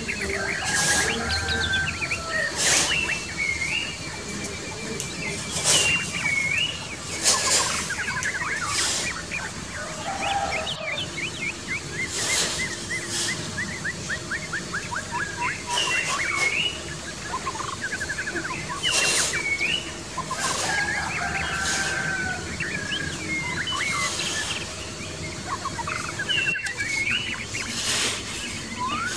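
Small hand trowel scraping and scooping sand in short strokes every second or two, with birds chirping and trilling throughout.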